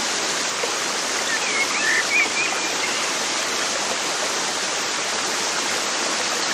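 Steady rush of running water, like a stream, with a few short high chirps about two seconds in.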